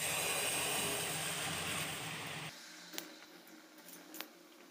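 Pua batter of maida and semolina deep-frying in hot oil in a kadhai. A loud hissing sizzle as the ladleful goes into the oil drops suddenly to a quieter sizzle about two and a half seconds in, with a couple of light clicks.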